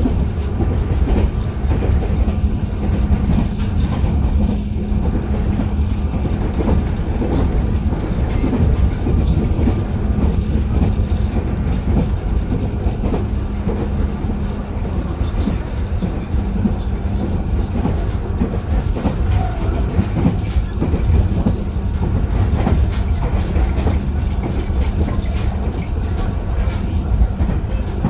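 205 series electric train running along the line, heard from inside the car above its line breaker: a steady rumble and clatter of wheels on track. A low hum fades out about halfway and comes back near the end.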